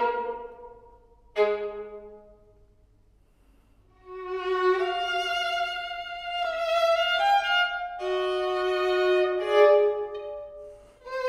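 Solo violin: two sharp chords that ring out and fade away, a brief quiet pause, then a sustained bowed melody of long held notes that step up and down in pitch.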